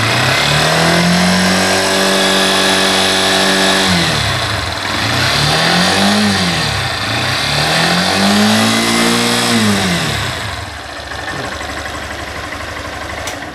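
Honda CG Titan 160 single-cylinder four-stroke engine revved up and held, dropped back, blipped briefly, then revved and held again before settling to a lower steady idle. The owner is showing a scraping he feels inside the left side of the engine when the revs fall from above 5,000 rpm, a noise he says may be felt more than heard.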